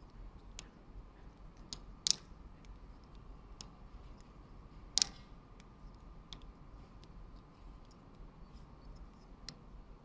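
Faint, scattered clicks of a small 3D-printed plastic butterfly knife being flipped and fumbled by hand, its plastic handles clicking on their pivots, with two sharper clicks about two seconds and five seconds in.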